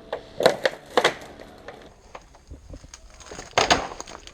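Three sharp clicks or knocks in the first second, then a louder short scraping burst about three and a half seconds in.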